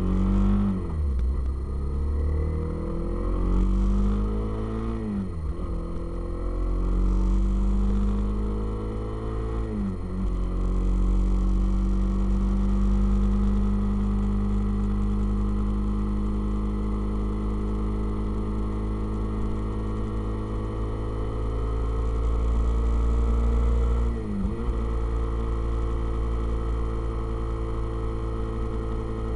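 Motorcycle engine pulling up through the gears: the note climbs and drops sharply at each shift, about a second in, around five seconds and around ten seconds. It then holds a steady note at cruising speed, with one brief dip and recovery late on.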